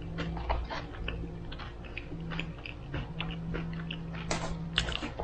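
Close-up chewing and wet mouth clicks of someone eating butter chicken, in many short, irregular smacks, over a low steady hum.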